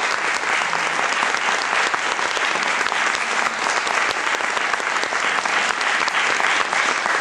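Audience applauding steadily, with many hands clapping at once.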